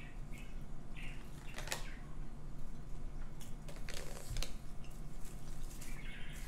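A person chewing a soft sushi roll, with scattered faint mouth clicks and smacks over a low, steady room hum.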